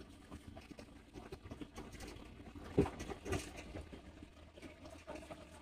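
Cabin noise inside a moving coach bus: a low, steady road and engine rumble, with two sharp knocks close together about three seconds in.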